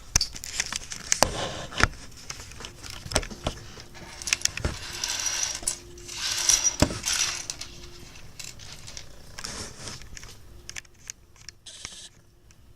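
Handling noise: repeated clicks and clatter of small hard objects being moved about, with stretches of rustling about five and six and a half seconds in.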